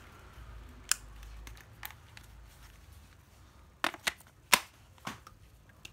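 Several sharp clicks and knocks from a cordless screwdriver being handled, about six in all, the loudest about four and a half seconds in.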